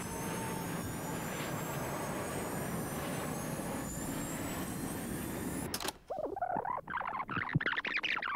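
Airbus A320's twin jet engines spooling up from idle toward full power: a steady roar with a thin turbine whine slowly rising in pitch. About six seconds in it cuts off abruptly to a louder, irregular warbling sound.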